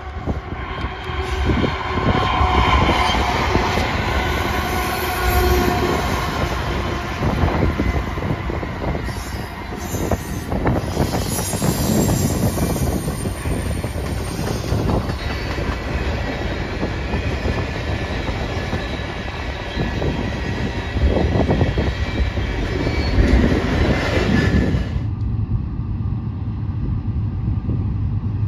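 Freight train passing close by: wheels clattering over the rail joints, with wheel squeal. Near the end the clatter drops away abruptly, leaving a low rumble.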